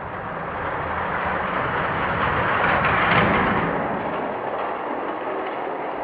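Die-cast toy cars rolling down an orange plastic Hot Wheels track, a steady rolling rumble that swells about three seconds in and then eases.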